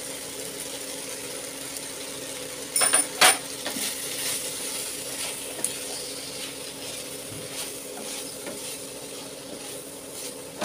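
Two sharp clinks of a spoon about three seconds in, then a wooden spatula stirring and scraping ivy gourd masala around a non-stick frying pan, with light clicks and a faint sizzle over a low steady hum.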